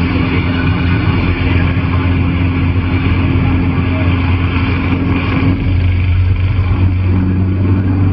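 Steady drone of a car on the road heard inside the cabin, mixed with the even hiss of a CB radio receiver on an open channel; the hiss thins a little past halfway.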